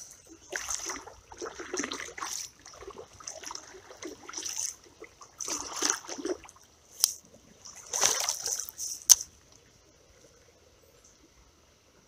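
Creek water trickling and sloshing in uneven surges, with two sharp clicks about seven and nine seconds in, then it falls almost quiet.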